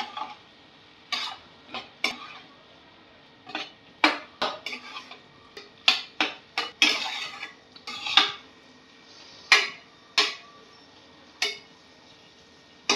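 Spatula scraping and knocking against a non-stick kadhai while French beans are stirred, in irregular strokes about once a second.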